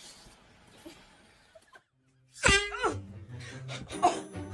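A quiet lull, then about two and a half seconds in a person lets out a loud, high-pitched cry, followed by laughter and chatter.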